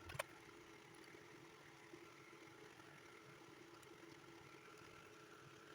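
Near silence: room tone with a faint steady hum, and a single light click at the very start.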